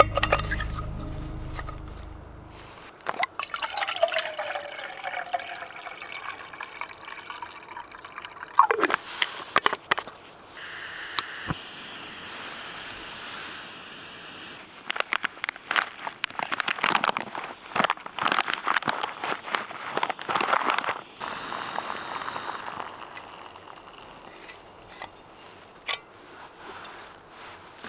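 Water heating in a finned heat-exchanger pot on a backpacking gas canister stove: the burner hisses steadily while the water crackles and bubbles, busiest in the middle of the stretch, as it comes toward the boil.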